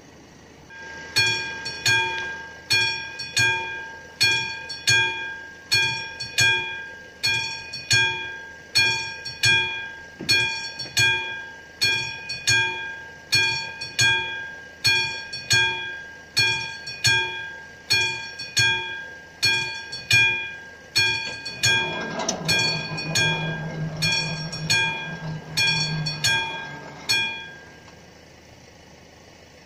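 Classic mechanical warning bell of an AŽD 71 level-crossing signal striking about once a second, each strike ringing on, then stopping near the end. Toward the end a low steady hum from the barrier drive joins it for a few seconds as the barrier arms lower.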